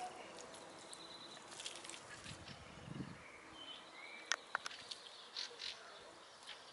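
Hens scratching and pecking in dry, pebbly soil: faint scrapes and rustles, with two sharp clicks of beak or claw on stone a little past halfway. A few short, high chirps sound faintly in between.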